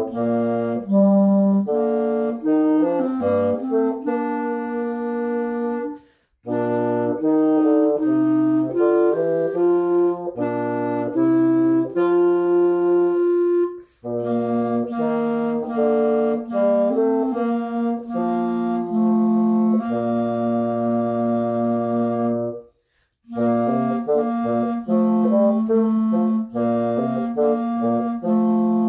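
Bassoon and clarinet playing a duet, note by note, the bassoon carrying a low line under the clarinet. The music breaks off into brief silence three times, about six, fourteen and twenty-three seconds in.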